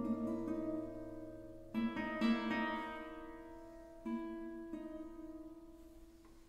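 Solo classical guitar playing sparse plucked chords that ring and fade. Fresh chords are struck about two seconds in and again about four seconds in, and the sound dies away near the end.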